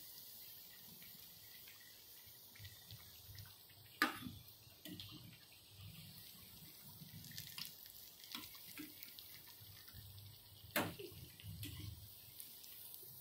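Masala vadas sizzling as they deep-fry in hot oil, with faint scattered crackles. A slotted metal spoon knocks sharply against the pan twice, about four seconds in and again later.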